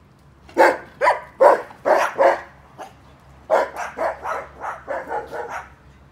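A dog barking in two runs: about five loud barks in the first couple of seconds, then a quicker run of about eight softer barks.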